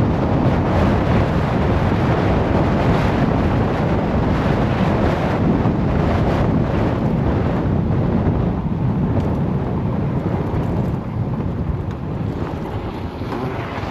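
Wind buffeting the microphone: a loud, steady rushing noise that eases a little in the second half.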